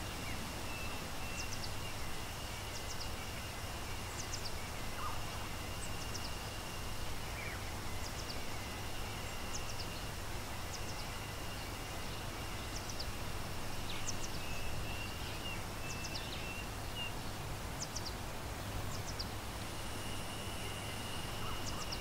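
Steady rush of falling water from a waterfall, with forest ambience. A bird gives short, high, falling chirps every second or two over a steady thin high-pitched tone.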